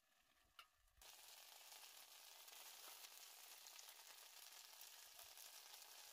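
Faint sizzling hiss from a pot of tomato pasta cooking on a gas-cylinder burner. It starts sharply about a second in and cuts off abruptly near the end.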